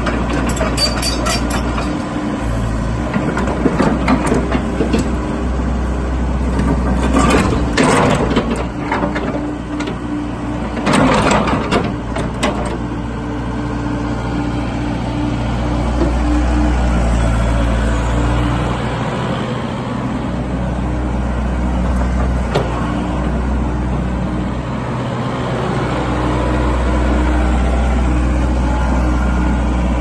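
Komatsu PC78US-6 compact excavator's diesel engine running with a steady low drone, its note shifting as the boom and arm are worked. There are two louder, noisier bursts, about 7 and 11 seconds in.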